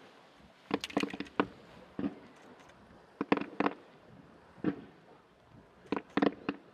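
Distant fireworks: a dozen or so sharp pops and bangs in irregular clusters, each with a short echo.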